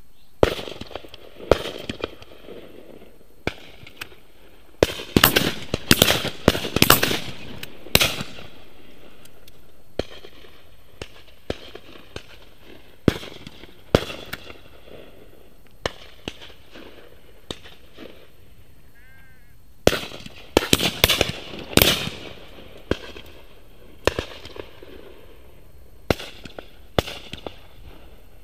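Shotguns firing from several guns along the line: scattered single shots and two dense volleys, each report echoing. The shots come far faster than one gun could fire them.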